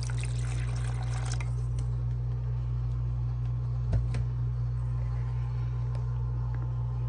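Water poured from a stainless steel kettle into a plastic measuring cup, a splashing trickle for the first second and a half, then a single knock about four seconds in, over a steady low hum.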